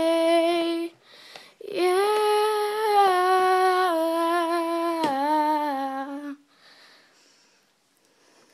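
A girl's unaccompanied voice singing wordless held notes: a short one ending just under a second in, then after a breath one long note of about four and a half seconds that steps down in pitch near its end, closing the song.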